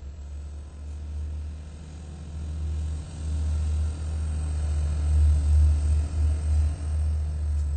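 Freight train passing, a deep rumble of rolling cars and a diesel locomotive's engine that grows louder and peaks about five seconds in.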